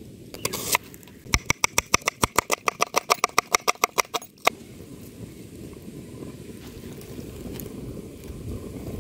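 Kitchen knife slicing a red onion on a wooden chopping board: a quick, even run of chops, about seven a second for some three seconds, stopping abruptly. After that comes a steady low background noise.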